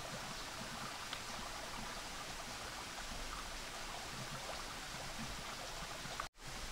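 Steady rush of a flowing creek, with a momentary dropout to silence near the end.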